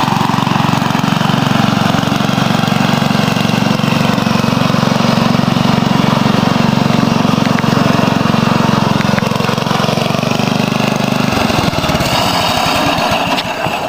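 Riding lawn tractor's engine running steadily as it is driven. About 11 seconds in the note breaks into a slower, uneven chugging.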